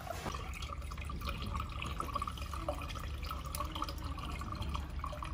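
Water pouring from a plastic jug into the fill port of a laser welder's water chiller, a steady trickle with small drips.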